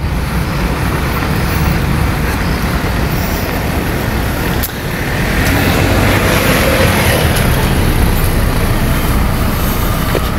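Road traffic passing close by: steady engine and tyre noise, with one vehicle swelling louder about halfway through.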